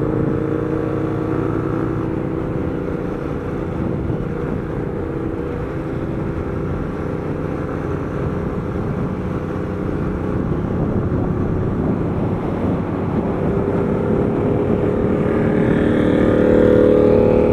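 Motorcycle engine running steadily at highway cruising speed under a constant rush of wind. Near the end a Yamaha MT-07's parallel-twin engine comes alongside, its note rising and growing louder.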